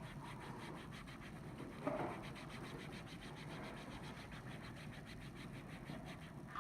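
Faint scratching and rubbing as a vinyl phone skin is pressed and smoothed down onto a phone to push out trapped air, with one brief louder tap about two seconds in.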